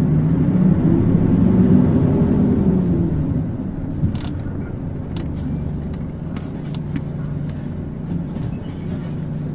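Mitsubishi Fuso Aero Star (PKG-MP35UP) city bus diesel engine heard from inside the cabin. It pulls with a whine that rises and then falls in pitch over the first three seconds, then eases to a steadier, quieter drone with a few short rattles and a knock about four seconds in.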